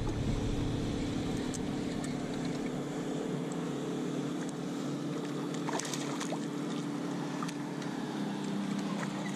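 A boat motor running with a steady hum, and a few light ticks over it.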